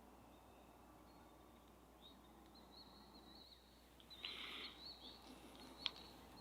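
Near silence in open country, with faint distant songbird chirps and a thin high warbling song; no turkey gobbles back. A brief soft noise about four seconds in and a small click near the end.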